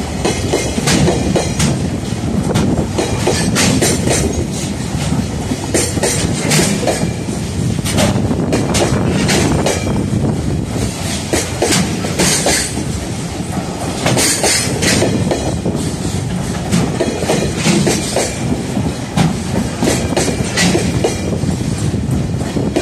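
Container freight train's flat wagons rolling past close by: a steady rumble of steel wheels with clickety-clack over the rail joints, and now and then short high-pitched bursts of wheel noise.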